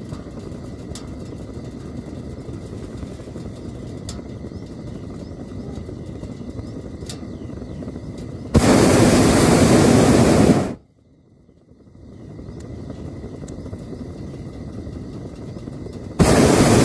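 Hot-air balloon's propane burner firing: a loud roar that starts suddenly about halfway through, lasts about two seconds and cuts off, then a second blast that starts just before the end. These are short burns on the landing approach. A steady low rushing noise fills the time between them.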